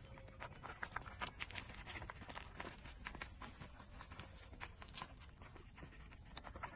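Four-week-old puppies suckling at their mother's teats: a faint, irregular run of small sucking clicks and smacks.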